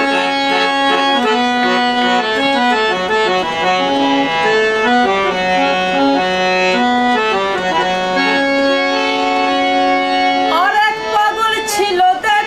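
Hand-pumped harmonium playing a Bengali folk melody over held chord notes, as an instrumental passage between sung lines. About two seconds before the end, a man's singing voice comes in over it.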